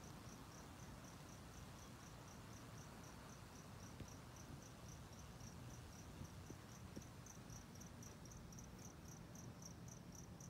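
A cricket chirping steadily, about three high-pitched chirps a second, faint over a low background rumble.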